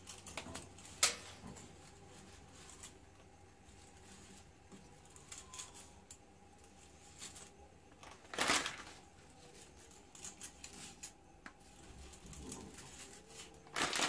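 Dry spaghetti being pushed into a metal pot of boiling water: scattered light ticks and clicks as the stiff strands knock against the pot rim. There is a sharp click about a second in and a louder scrape about eight and a half seconds in, with another near the end.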